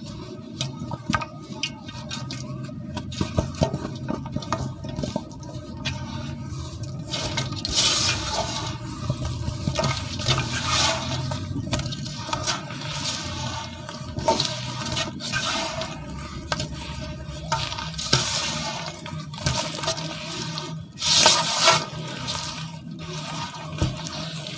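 Hands crumbling and squeezing soaked pure cement in a basin of water, with wet squelching, sloshing and crumbly crackles that come and go irregularly. There is a louder wet squelch about 21 seconds in.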